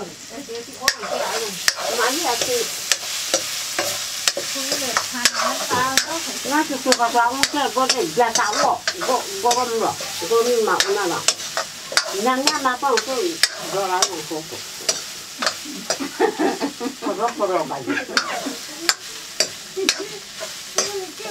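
A metal ladle scraping and knocking against a black metal kadai (wok) as potatoes are stirred, with many sharp clicks and squeaky scrapes over a steady frying sizzle.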